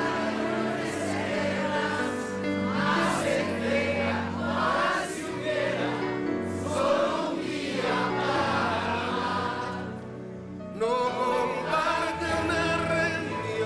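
Live performance of a slow nueva trova ballad, with the studio audience singing along in chorus over the band's accompaniment. The music briefly drops in level about ten seconds in.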